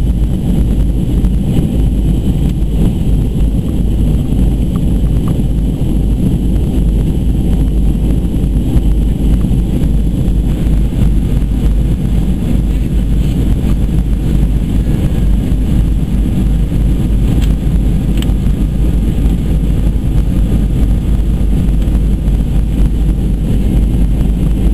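Steady in-flight cabin noise of a Boeing 737-200 Advanced: its Pratt & Whitney JT8D turbofans and the airflow past the fuselage, heavy in the low end.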